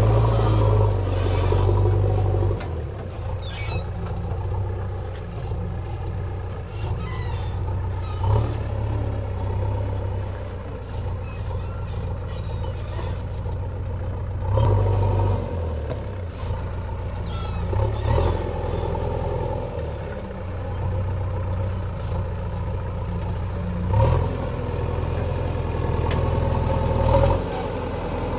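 JCB backhoe loader's diesel engine running, louder for the first two seconds, then swelling briefly several times as it works under load, with a few faint knocks.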